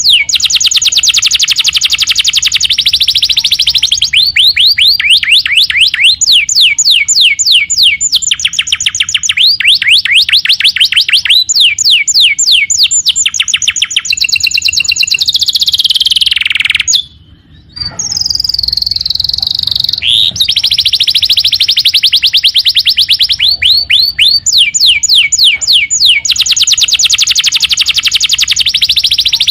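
Domestic canary singing vigorously: a long, loud song of rapid trills, each run of quickly repeated notes giving way to a different one every second or two, with one short pause just over halfway through.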